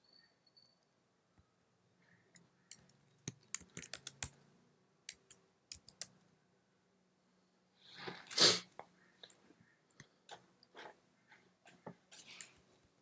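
Light keystrokes on a computer keyboard in scattered runs, with a single loud, short burst of noise about eight seconds in that stands well above the typing.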